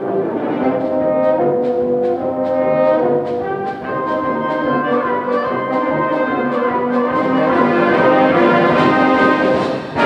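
Symphonic concert band playing, brass prominent, holding sustained chords over a steady beat of short percussion strokes.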